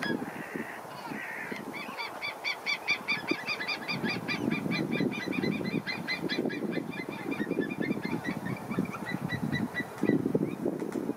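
White-tailed eagles calling: a rapid series of high yelping notes, about seven a second, slowing and fading near the end, over a low rumble.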